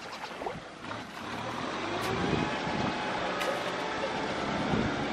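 Shallow muddy water sloshing and splashing as people wade through a flooded rice field and grope in the mud by hand. The sound grows louder about a second in, with a couple of sharp splashes and some wind on the microphone.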